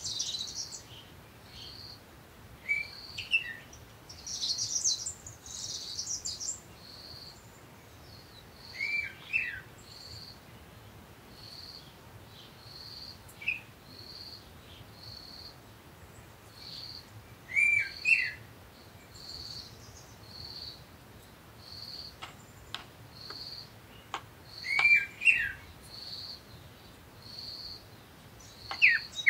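Birds chirping: one bird repeats a short high note about once a second, while other birds give curved chirps every few seconds.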